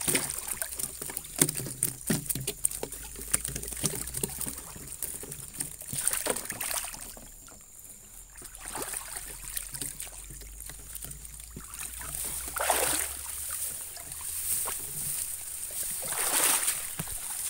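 Shallow muddy stream water sloshing and splashing around a person wading through it, with scattered small knocks and clatter in the first few seconds and a few louder swishes later. A steady high-pitched whine sits in the background.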